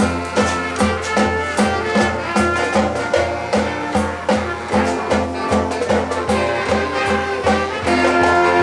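A high school marching band playing: brass chords over a steady drum beat, moving into one long held chord near the end.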